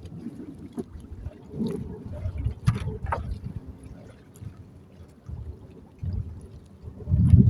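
Sea water sloshing and lapping, with irregular gusts of strong wind rumbling on the microphone, the strongest gust near the end.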